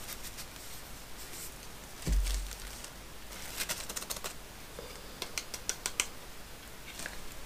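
Plastic bag lining a cardboard box crinkling and rustling while a freshly flocked wooden drawer part is handled inside it, with light clicks and ticks. A dull thump about two seconds in is the loudest sound.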